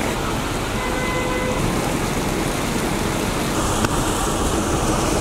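Heavy rain falling steadily, an even loud hiss, with a single sharp tick about four seconds in.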